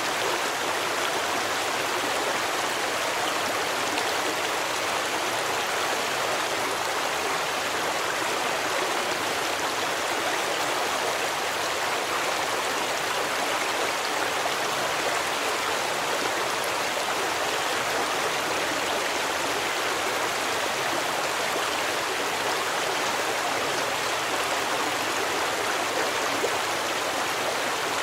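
Stream water flowing and splashing, a steady, even rush.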